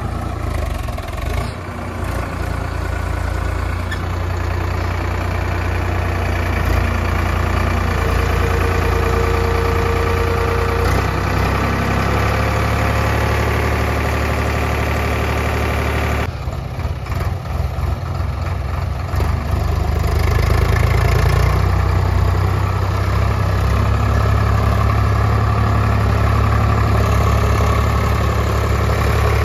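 Sonalika DI 60 tractor's diesel engine running steadily while it hauls a loaded soil trolley over a dirt track, with a brief steady whine about eight seconds in. The sound breaks off about halfway through, and the engine runs louder from about two-thirds of the way on.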